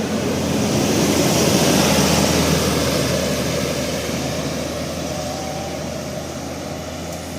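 A large bus driving past, its engine and road noise swelling to a peak about two seconds in and then slowly fading away.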